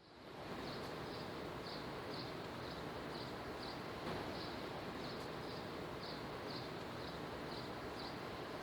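Dishwasher running a wash cycle: a steady rushing noise with a faint high chirp repeating about twice a second.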